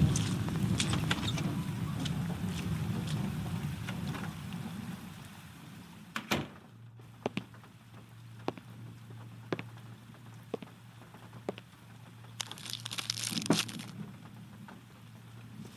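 Wood fire crackling: dense pops over a low rumble that fades out about five seconds in, then scattered single sharp pops over a faint steady hum, with a short hissing burst near the end.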